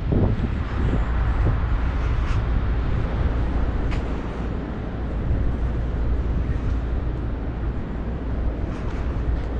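City street ambience: a steady low rumble of traffic and city hum, with a few faint clicks.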